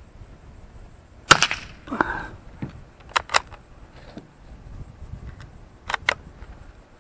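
A single shot from a Remington Targetmaster 510 single-shot bolt-action .22 rifle about a second in, followed by a short rattle and a run of sharp metallic clicks as the bolt is worked, the spent case comes out and a fresh cartridge is chambered.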